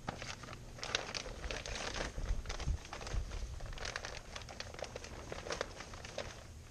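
Plastic shrink-wrap film crinkling and rustling in irregular crackles as it is gathered by hand and tucked under the edge of a boat's hull.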